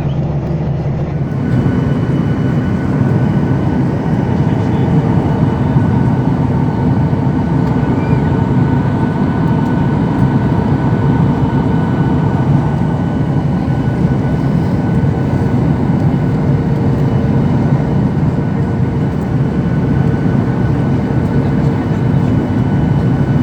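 Steady cabin noise of a Boeing 737-800 in flight: the rush of air and the drone of its CFM56 turbofan engines, with a faint steady whine running through it. The sound shifts slightly about a second in, then holds even.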